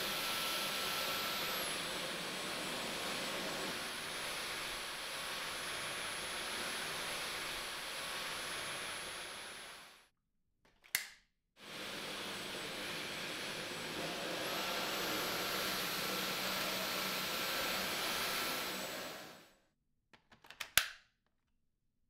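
Dyson V12 Detect Slim cordless stick vacuum running in two steady stretches of about ten and eight seconds, with a thin whine over the airflow noise that steps down in pitch about two seconds in and steps back up partway through the second run. Short sharp clicks come in the gap between the runs and, loudest, near the end.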